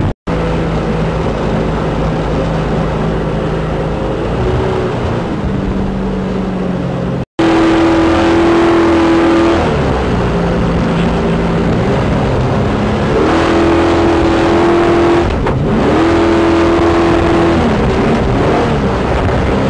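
Jet boat engine running hard, its pitch holding steady and then rising and falling with the throttle, over the rush of water. The sound cuts out for an instant twice, about a quarter second in and about seven seconds in.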